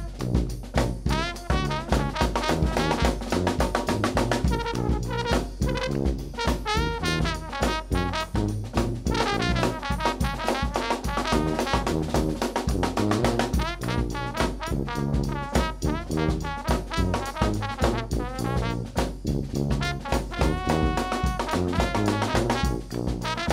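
New Orleans–style brass band playing an upbeat number, a trombone carrying the lead line over sousaphone bass, bass drum and snare drum keeping a steady driving beat. Near the end the horns hold a few long notes.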